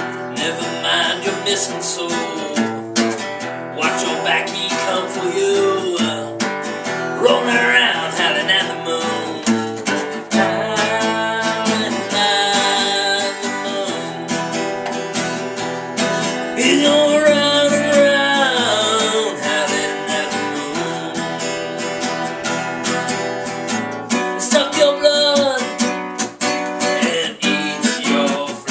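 Acoustic guitar strummed in steady chords, with a man's voice singing along in long held and gliding notes.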